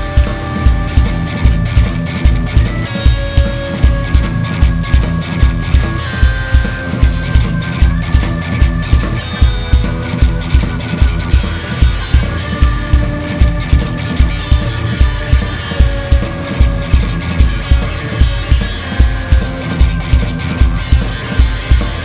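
Live rock band playing, with electric guitar, bass, keyboards and drums. A steady kick-drum beat runs about twice a second under long held lead notes that step to a new pitch every few seconds.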